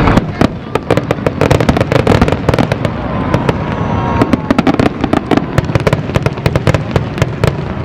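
Aerial fireworks shells bursting in a rapid barrage: many sharp bangs and cracks in quick succession over a continuous low rumble.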